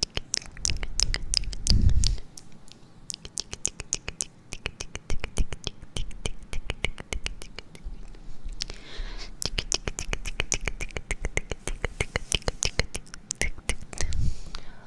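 Close-miked ASMR scratching and tapping: a dense run of crisp clicks and scratches, with soft low thumps about two seconds in and again near the end.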